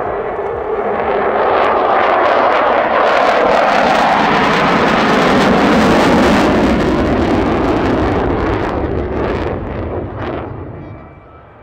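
F-16 Fighting Falcon fighter jet passing in afterburner: loud jet noise that swells to its peak about halfway through and drops in pitch as the jet goes by. It falls away sharply near the end.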